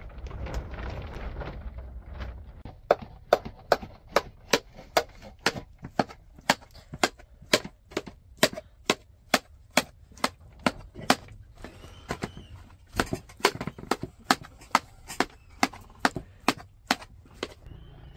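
Metal ladle knocking against an aluminium basin as boiled potatoes are mashed in it, sharp strikes about two a second with a short pause partway through.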